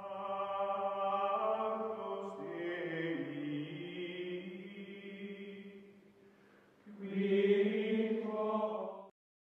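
Background music of long held, chant-like tones that shift pitch about two seconds in, fade out near the middle, come back louder about seven seconds in, then cut off suddenly about nine seconds in.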